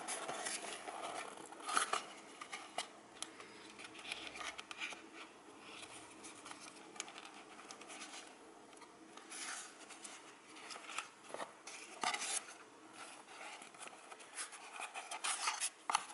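Unboxing handling noise: a small cardboard box and its card insert rubbing and scraping in short, irregular rustles, with a few light clicks as the small parts inside are taken out.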